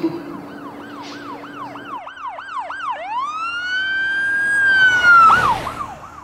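Emergency vehicle siren in a fast yelp of about three to four sweeps a second. About three seconds in it switches to one long rising wail that holds, then drops back into the fast yelp near the end.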